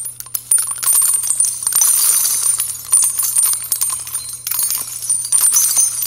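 A dense jingling, tinkling sound effect of many small metallic clinks, like shaken bells or pouring coins, over a faint steady hum, accompanying an animated section title.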